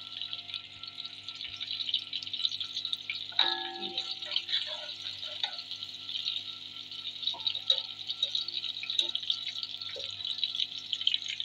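Sliced onions sizzling in hot oil in a pot, a steady crackling fry, while a steel ladle stirs them.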